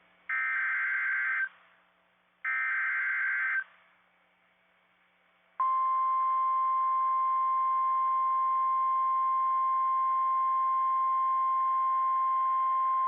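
Emergency Alert System broadcast over NOAA Weather Radio: the last two of three identical SAME header data bursts, a harsh two-pitched electronic warble about a second long each, then after about two seconds of quiet the steady 1050 Hz NOAA Weather Radio warning alarm tone starts about halfway through and holds unchanged, signalling that a warning follows.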